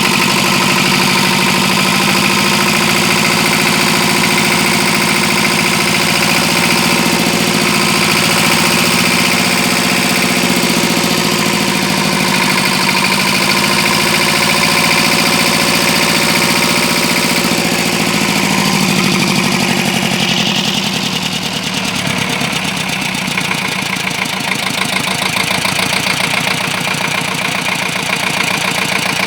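The N73's engine running steadily and smoothly. About twenty seconds in the revs fall, and it settles into a lower, slightly quieter idle.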